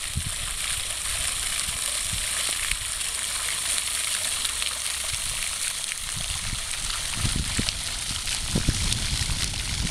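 Water splashing and running into a pond: a steady hiss, with low rumbling bumps on the microphone over the last few seconds.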